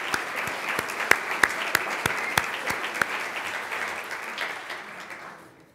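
Banquet audience applauding, with one louder set of regular claps about three a second standing out; the applause dies away over the last second or so.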